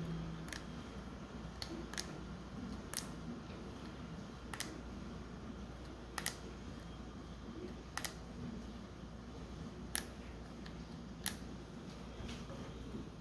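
Light, sharp clicks, about nine of them, one to two seconds apart, from hands working on an iPhone, over a low steady hum.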